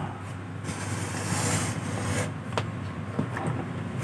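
Light clicks and knocks as a vintage amplifier's metal chassis is handled, over a steady background rumble.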